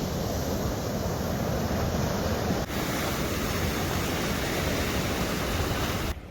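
Sea surf washing in steadily, with wind buffeting the microphone; the sound cuts off abruptly near the end.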